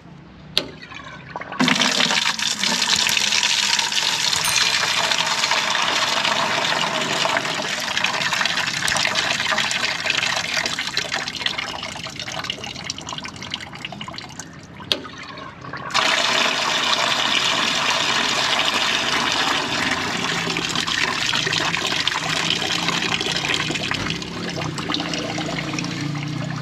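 Grey water gushing from a truck's waste-water drain onto the ground, let out by a newly fitted electric solenoid valve. A click about half a second in, the flow starts a second later, stops abruptly after another click about fifteen seconds in, starts again a second after that and slowly eases off toward the end.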